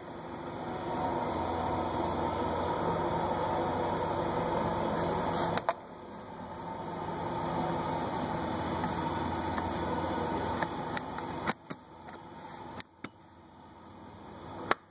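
A steady mechanical hum, like a fan or blower running. It builds up over about a second, cuts off suddenly about halfway, then builds back up over a few seconds before fading. A few sharp clicks come near the end.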